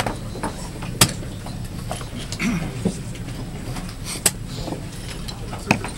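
Sharp clicks and knocks of a blitz chess game: chess clock buttons being pressed and pieces set down on the board, four distinct ones with the loudest about a second in, over a steady background hum.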